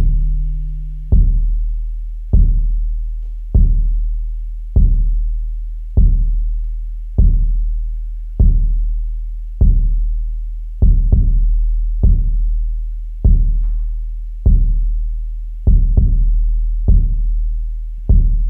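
Experimental industrial noise music: a deep electronic bass pulse thudding slowly, about once every 1.2 seconds, each hit fading out over a steady low drone, with a few hits doubled.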